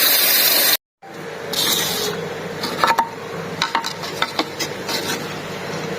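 Seat Toledo engine running with a loud, steady hiss that cuts off abruptly in under a second; the mechanic traces this strange noise to a failed oil separator valve letting manifold vacuum draw air into the engine. After the cut, quiet handling noise with a few light clicks and knocks.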